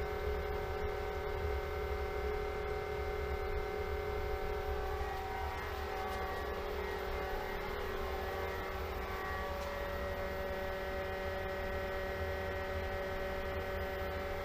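Pentair SuperFlo variable-speed pool pump running at high speed, a steady whine of several tones over a low rumble as it pushes about 60 to 67 gallons a minute through the plumbing. About five or six seconds in, the tones shift as the pump's speed and power draw climb.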